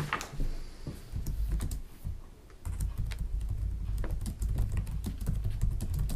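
Irregular light clicks and taps, with a low rumble growing heavier about a third of the way in.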